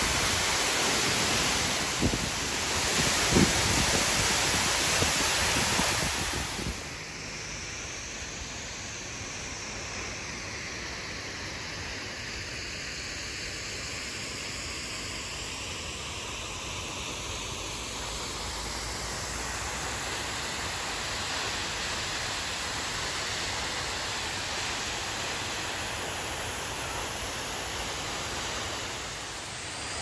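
Waterfall pouring close by, a loud steady rush of falling water with a few thumps. About seven seconds in it drops suddenly to a quieter, more distant steady rush of water.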